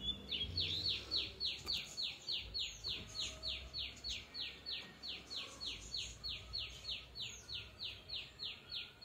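A bird calling: a rapid, even series of identical downslurred whistled notes, about three a second.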